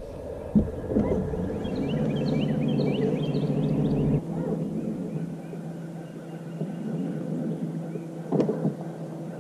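Bow-mounted electric trolling motor running with a steady hum, over a low rumble that drops away a little past four seconds in. Birds chirp for a couple of seconds early on, and a few sharp knocks sound near the start and near the end.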